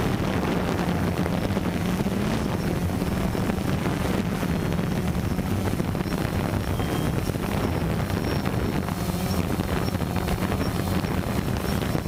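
Multirotor drone's motors and propellers humming steadily, picked up by its own onboard camera, with wind noise buffeting the microphone.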